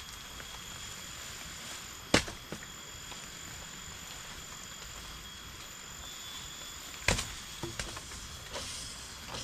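Steady hiss of rain with a faint, steady high insect drone. Two sharp knocks, about two seconds in and about seven seconds in, each followed by a few lighter taps.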